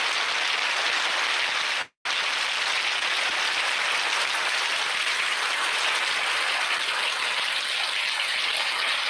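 Heavy thunderstorm rain pouring down, a steady dense hiss. The sound cuts out completely for a split second about two seconds in.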